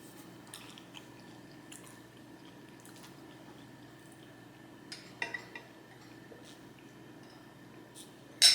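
A person chewing fast food close to the microphone: faint wet mouth clicks and smacks, a few louder ones about five seconds in, and a sharp click near the end.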